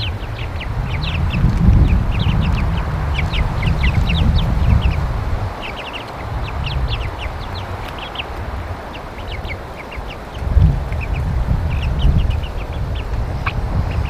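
A flock of young Red Ranger meat-bird cockerels peeping and cheeping, many short high calls every second. A low rumbling noise runs underneath and swells twice, near the start and again about ten seconds in.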